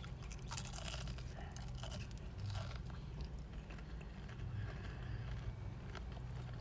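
A person chewing crunchy fried food, onion rings, with faint irregular crunches, over a steady low hum.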